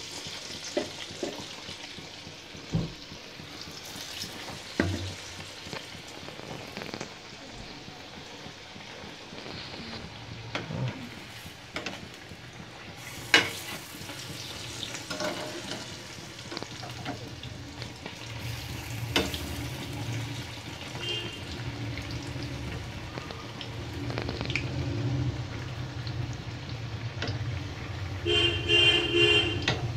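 Besan-battered bread pakoras deep-frying in hot oil in a kadhai, with a steady sizzle. A slotted spoon clinks against the pan now and then as the pakoras are turned, most sharply about halfway through.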